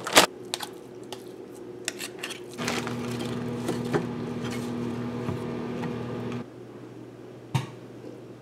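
A steady mechanical hum starts about two and a half seconds in and cuts off suddenly a few seconds later, over light clicks and rustles of lettuce being handled on a plate. A single sharp knock comes near the end.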